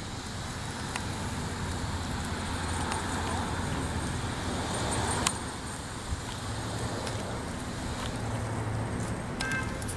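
Road traffic noise: a vehicle passing, its noise swelling and then fading over a steady low hum, with one sharp click about five seconds in.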